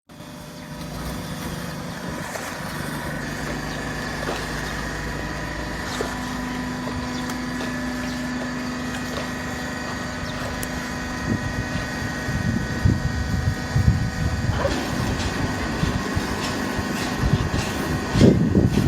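Full-automatic horizontal cardboard baler running: a steady machine hum with several held tones. From about halfway in, irregular low rumbling and knocks join it and grow louder.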